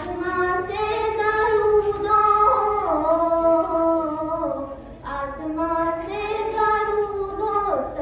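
A girl singing a naat, Urdu devotional verse, unaccompanied into a microphone: one voice holding long drawn-out notes with sliding ornaments, with a short pause for breath about five seconds in.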